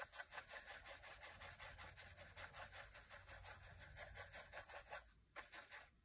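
Small bristle paintbrush scrubbing back and forth over charcoal on paper to blend and soften the shading, about five quick strokes a second, faint. The strokes pause briefly about five seconds in.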